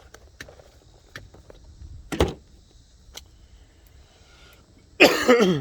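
Light clicks and one sharper knock about two seconds in, as screwdriver sets in their packaging are handled and set down.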